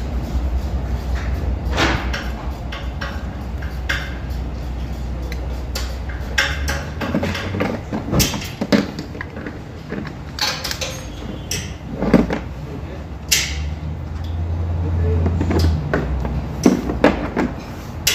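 Scattered clicks, clinks and knocks of a metal fuel-system cleaning canister and its brass hose fittings being handled and screwed together, over a steady low hum.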